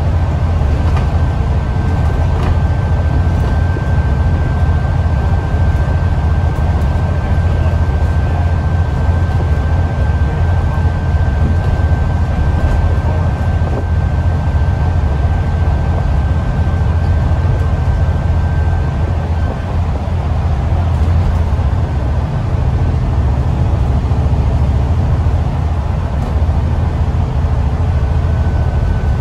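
Interior ride noise of an Alexander Dennis Enviro400 MMC double-decker bus on the move: a steady deep engine and road drone with a thin high whine over it. The whine drops out about two-thirds of the way through and comes back briefly near the end.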